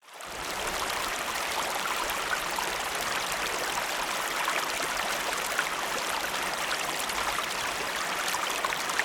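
Steady rush of running water, fading in over the first half-second and then holding even.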